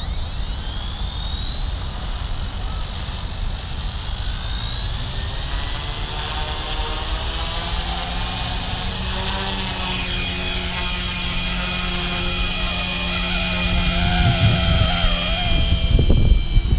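Small electric RC helicopter (Blade 130 S mechanics in a LEGO Technic frame) spooling up: the motor's whine climbs steadily in pitch as the rotor gets up to speed. Near the end the pitch wavers as the helicopter lifts off.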